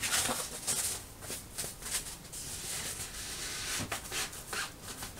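Rustling of a thin sheet being handled and pushed down into a plastic battery box, with a few light clicks and knocks from the hands working in the case.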